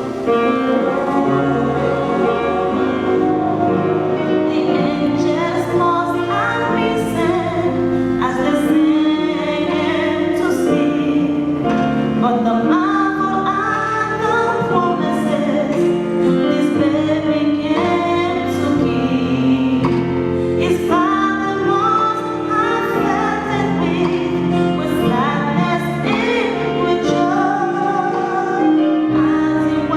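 Choir singing with instrumental accompaniment, held sustained notes that change every second or so without a break.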